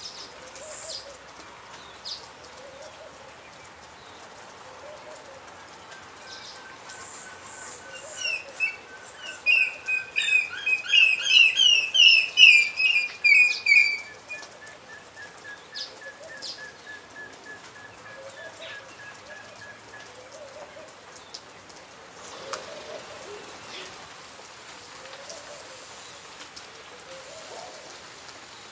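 African grey hornbill calling: a run of repeated piping, whistled notes that builds up over several seconds and is loudest for about five seconds, then goes on as a quieter, even series of notes. Steady rain hiss underneath, with soft low notes repeating about every second and a half.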